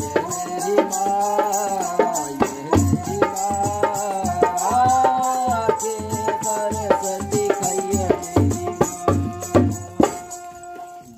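Live folk music: a long-necked bowed fiddle plays a sliding melody of held notes over a hand-beaten dholak barrel drum keeping a steady rhythm. It fades out near the end.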